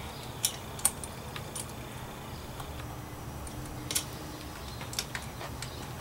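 Scattered light clicks and ticks of a thin steel dropper-post cable and its housing tapping against a mountain-bike frame as the cable is threaded through, over a faint low hum.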